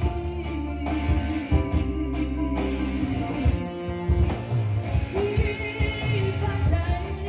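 A pop song with a singing voice and guitar, played back through Yamaha DBR and DSR powered PA loudspeakers in a sound check.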